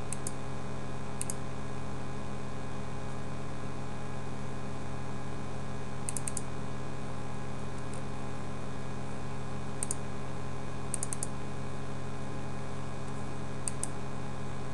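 Computer mouse clicks, scattered and in quick runs of two to four, over a steady low electrical hum.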